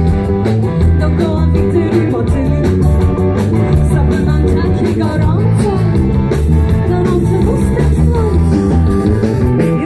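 Live rock band playing amplified through a stage PA: electric guitars, bass and drums with a singer, at a steady beat.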